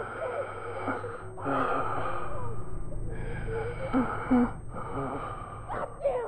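A person's heavy, ragged gasping breaths, about four long ones of a second or so each, in the aftermath of a violent struggle.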